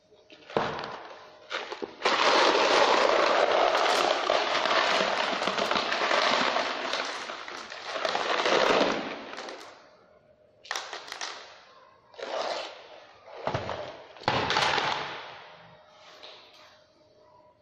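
Hard bait pellets rattling against each other and a plastic crate as they are handled or poured: a dense rattle lasting about seven seconds, then three shorter rattles.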